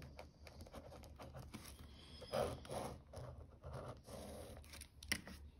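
Pen scratching on notebook paper in a few short strokes as a word is finished and a box is drawn around it.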